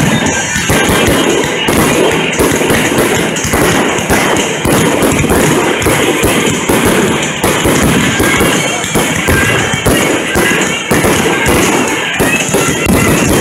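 Fireworks display with many launches and bursts going off in quick succession, over loud music that plays throughout.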